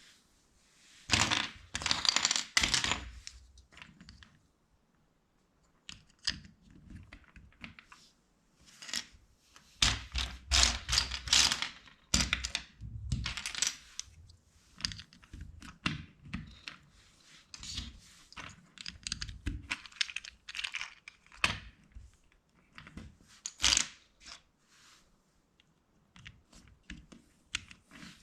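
Plastic LEGO bricks being handled and snapped together: irregular clusters of sharp clicks and rattles with short quiet gaps. The loudest clusters come about a second in and again around ten to fourteen seconds in.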